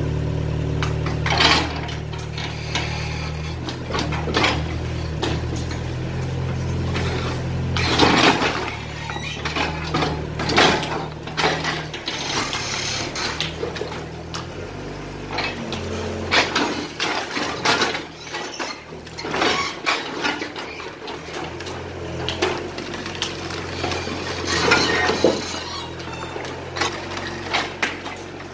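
Excavator's diesel engine running, its low note shifting about halfway through. Over it come repeated clattering crashes and scrapes of concrete and masonry debris as the house is broken down, the loudest about eight seconds in and near the end.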